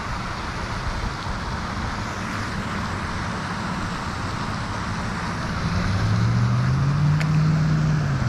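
Steady road traffic noise, with a vehicle's engine hum growing louder and rising in pitch over the last couple of seconds as it passes. One short sharp click about seven seconds in.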